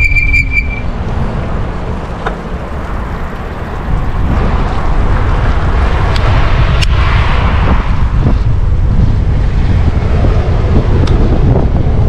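Wind buffeting the microphone of a camera riding along on a Stromer ST2 speed e-bike, a loud, steady low rumble of rushing air. It eases about two seconds in and picks up again about four seconds in, with a few faint ticks.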